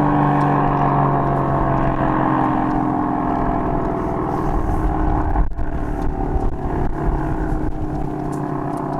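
ACA P-50 dual-tone rotating outdoor warning siren sounding a chord of tones that slides slowly lower in pitch, loud and steady. From about halfway a low rumble of wind or handling noise rises under it, with a bump about five and a half seconds in.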